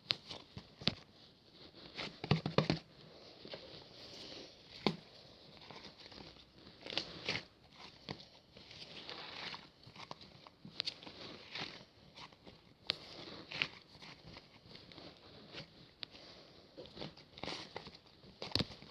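Irregular small clicks, taps and crinkling rustles of things being handled, loudest in a quick cluster about two seconds in.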